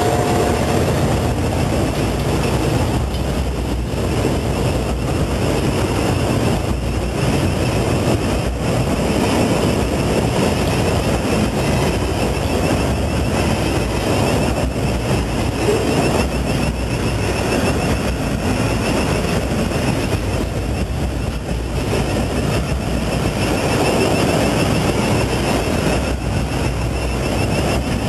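Container wagons of a departing freight train rolling past: a steady rumble of steel wheels on the rails.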